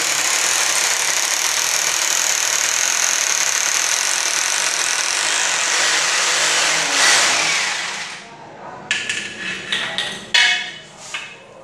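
Power drill boring into ceramic wall tile, running with a steady high whine for about seven seconds, then winding down. A few short knocks follow near the end.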